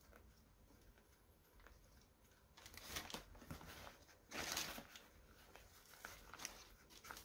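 Near silence broken by a few brief rustles and crinkles, strongest about four and a half seconds in, as a Reebok Pump sneaker is handled over tissue paper and its tongue pump is squeezed.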